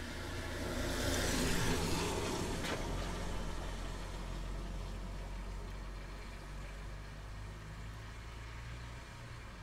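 A vehicle going by on a wet road: tyre hiss swells about a second in and fades away over the next few seconds, over a steady low engine hum.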